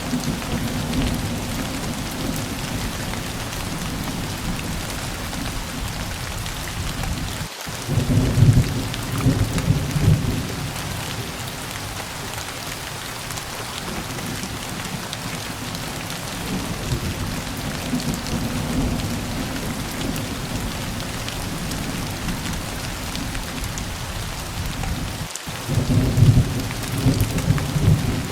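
Steady heavy rain hissing, with rolling thunder rumbling low twice: about a third of the way in and again near the end, each just after a brief dropout in the sound.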